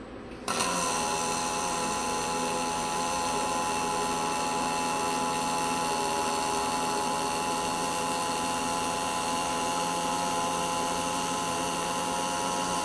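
Fronius CMT (Cold Metal Transfer) MIG welding arc, striking suddenly about half a second in and then burning steadily, an even hiss with steady whining tones through it.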